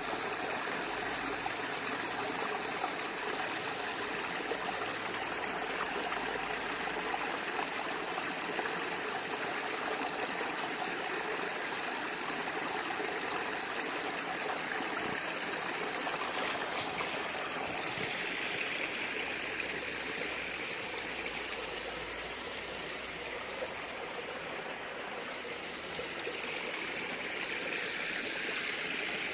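Stream water flowing steadily, its sound shifting slightly in tone about eighteen seconds in.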